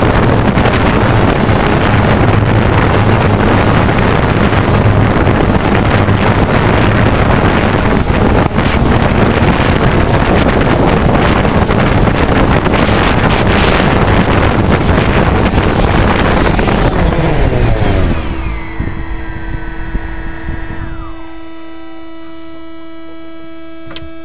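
Remote-controlled multirotor drone's propellers running loud, with rotor wash buffeting the microphone. About 18 seconds in the motors spin down in a falling whine as it sits on an aluminium boat deck, leaving a steady electronic hum.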